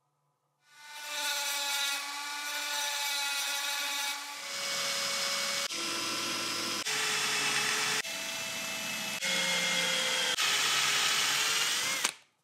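Cordless drill boring into the cast metal arm of a 1920s Pathé-Baby projector: a steady motor whine with the bit grinding and squealing on the metal. It is heard in several short pieces that change abruptly about once a second, and it stops suddenly near the end.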